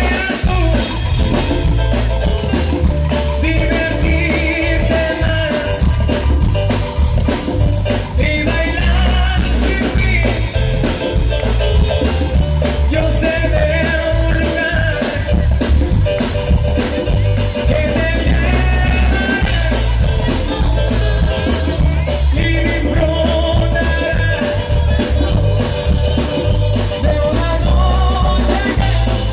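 Live band music heard through a loud PA: sung vocals over saxophones, drums and a heavy, steady bass beat.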